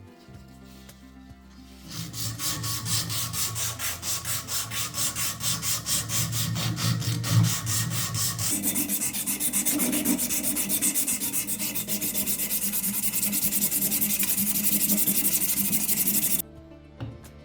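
Wood being worked by hand with back-and-forth abrasive strokes, as in sanding or rasping. The strokes start about two seconds in, run at roughly three a second, quicken to a dense, steady scrubbing about halfway through, and stop abruptly near the end.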